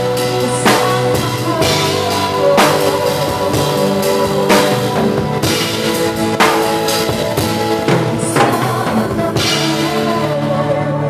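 Loud music with a drum kit: a steady beat with sharp hits about once a second over sustained chords.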